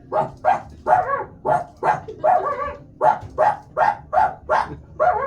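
A man's vocal imitation of a small dog barking: a quick run of short, sharp barks, about two or three a second.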